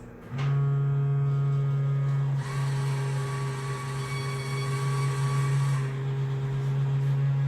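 A small electric motor starts about half a second in and runs with a loud, steady hum. A hissing whir is added from about two and a half to six seconds in.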